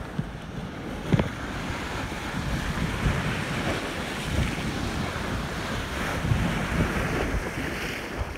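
Rough, hurricane-driven water churning and splashing against a wooden bulkhead and pier pilings, with gusty wind buffeting the microphone. A brief thump about a second in.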